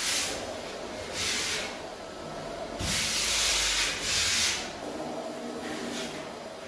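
Hand scrubbing on a rough stone wall: four rasping, hissing strokes, the longest lasting about a second.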